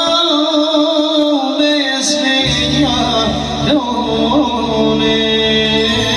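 Music with a held, wavering singing voice; a deep bass part comes in about two and a half seconds in.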